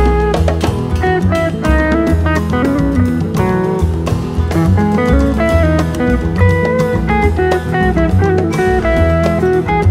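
Background music: guitar-led instrumental with drums and a steady beat.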